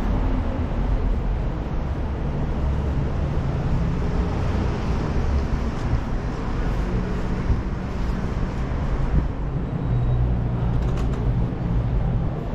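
City street traffic: motor vehicles running close by, with a low engine hum that shifts in pitch.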